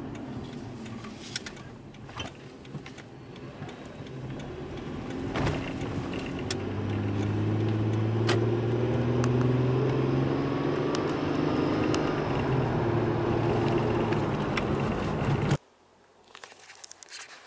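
Car engine and tyre-road noise heard from inside the cabin while driving, the engine note rising slowly as it picks up speed, with a few light clicks and rattles. About fifteen seconds in it cuts off suddenly to a faint hush.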